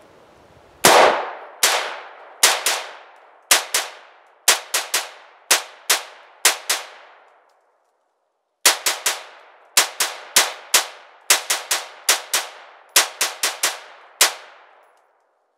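Semi-automatic 5.56 mm AR-15 rifle firing a long string of rapid shots, each trailing off in an echo. The shots come about two a second, pause for over a second about halfway, then resume faster at about three a second until the magazine runs dry.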